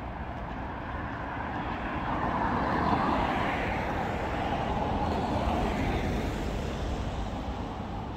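A road vehicle passing, its tyre and engine noise swelling to a peak about three seconds in and then slowly fading, over a steady low traffic rumble.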